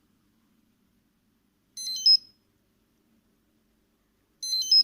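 Fire alarm control panel chirping twice, about two and a half seconds apart, each chirp a short cluster of high electronic tones ending in a louder peep: the panel's periodic signal that its sounders are set to 'stop' (silenced). A faint low hum lies underneath.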